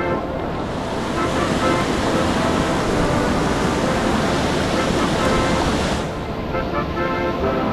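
White water rushing over a river weir in high flow, a steady roar heard close up from a kayak; the brighter hiss drops away suddenly about six seconds in. Background music plays underneath.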